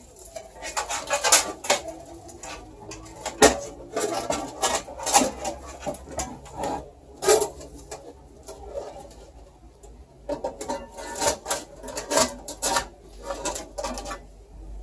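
Hands handling a computer power supply and its cables in a PC case: irregular rustling with sharp clicks and knocks, the sharpest about three and a half seconds in.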